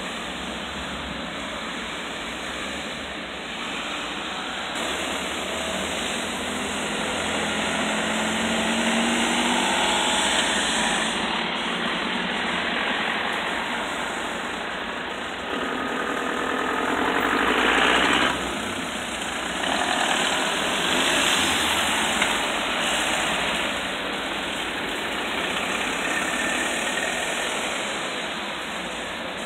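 Road traffic: a steady stream of cars passing on a wet road, engines running and tyres hissing on the wet asphalt, the sound swelling and fading as each group of vehicles goes by, loudest about eighteen seconds in.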